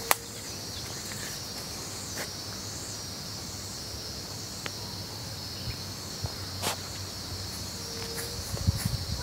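Steady, high-pitched chirring of insects in the background, with a sharp click just at the start and a few soft low thumps near the end.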